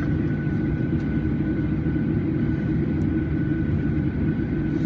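Cabin noise inside a Boeing 737-800 taxiing: a steady low rumble from its CFM56-7B engines at low thrust, with a faint steady high whine over it.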